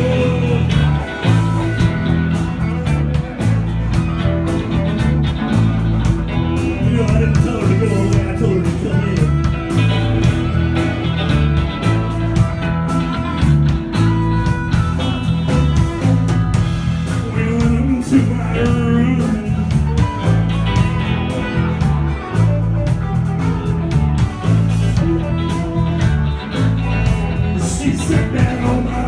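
A band playing blues-rock with guitar, a stepping bass line and drums, without a break.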